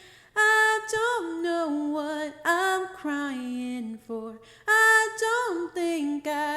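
A solo voice singing unaccompanied, phrases of held and sliding notes with short breaks between them.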